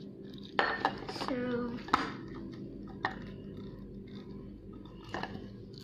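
A few sharp plastic clicks and knocks from a hand balloon pump being handled as a balloon is fitted onto its nozzle. There is a short wordless hum from a child near the start.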